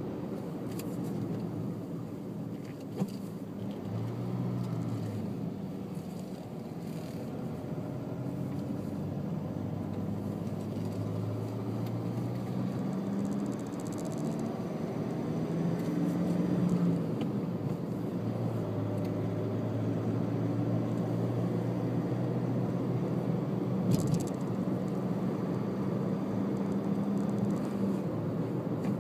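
A car's engine and road noise while driving, the engine hum stepping up and down in pitch as it speeds up and changes gear. Two short knocks come through, one a few seconds in and one near the end.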